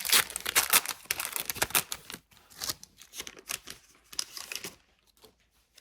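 A hockey card pack's foil wrapper crinkling and being torn open. The crackling is dense and loud for the first two seconds, then turns to scattered crinkles that stop about five seconds in.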